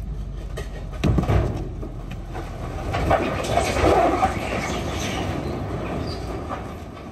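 Boulders sliding and tumbling out of a tipped dump truck bed, scraping and clattering against the steel, over the truck's running engine. The clatter surges about a second in and again for a couple of seconds in the middle; the heavy rocks are hard on the truck.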